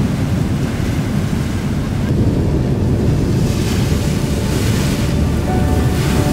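Ocean surf breaking and washing on a beach, with strong wind buffeting the microphone as a heavy low rumble. The hiss of a wave's wash swells about halfway through.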